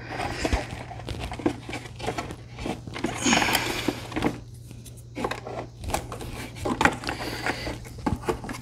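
Hard plastic parts being handled: the removed ATV tail light and its plastic mount turned over in the hands, giving scattered light clicks, knocks and rubbing.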